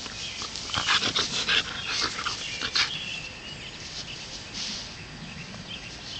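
Tamaskan dog rolling and wriggling on her back in grass, making a burst of rustling, crackling noises between about one and three seconds in, then fainter rustles.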